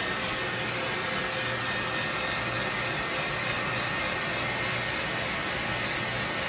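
Hair dryer blowing steadily, a constant even rush of air with a faint steady whine in it.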